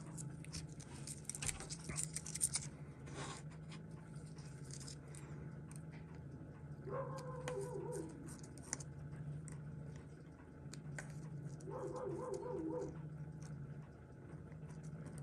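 A dog barking in two short bouts in the background, about seven seconds in and again around twelve seconds, over a steady low hum. Light metal clicks of tweezers on a watch case come in the first few seconds.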